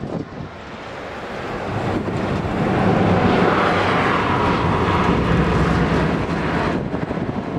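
Heavy vehicle going by, its engine and tyre noise growing louder over the first few seconds and then holding steady; the higher part of the sound drops away sharply near the end.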